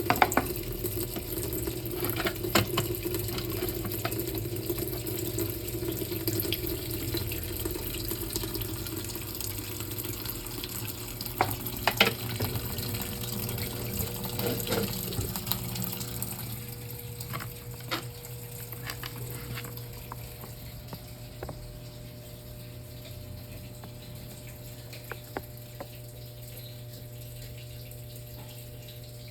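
Brastemp Clean top-loading washing machine filling with water at the start of its wash cycle: a steady rush of inflowing water over a low hum, with a few sharp clicks and splashes. The rush of water grows quieter about two thirds of the way through.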